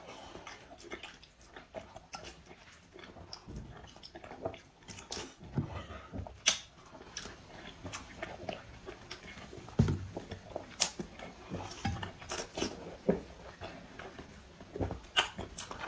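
A person biting into and chewing a whole raw zucchini: irregular crisp crunches and wet chewing close to the microphone, with a few sharper bites standing out.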